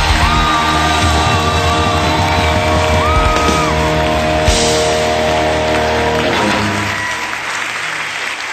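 Rock song with singing and guitar, played as a background track, ending about six and a half seconds in; a steady clatter of applause carries on after it.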